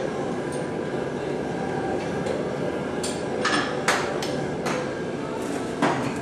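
Hand tools working on engine bolts in a car's engine bay: a scattering of short metallic clinks and taps, about half a dozen of them in the second half, over a steady background hiss.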